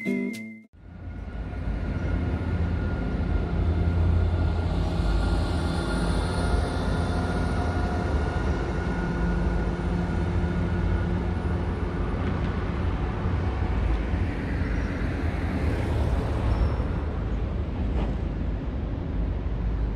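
Steady low rumble of steelworks and road traffic noise, with a heavy tanker truck passing on the road below.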